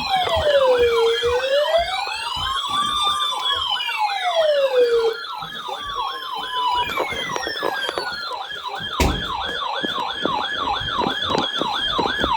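Emergency-vehicle electronic sirens sounding together: a slow rising and falling wail overlapping a fast yelp. The wail drops out about five seconds in and the yelp carries on. A single knock comes near the nine-second mark.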